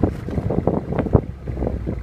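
Mercedes-Benz C63 AMG's 6.2-litre V8 running at idle after a cold start, an uneven exhaust burble of irregular pulses from the quad tailpipes. Wind buffets the microphone.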